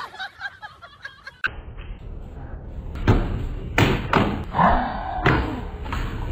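A series of heavy thumps and knocks, about four over two seconds, starting about three seconds in.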